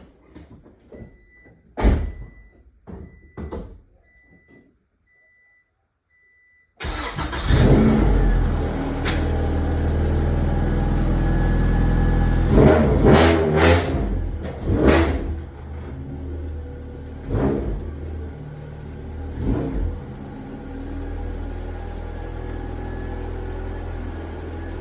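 A few sharp clicks and thumps with a car's chime beeping steadily in short repeated tones, then about seven seconds in the car's engine suddenly starts, revs several times and settles into a steady run.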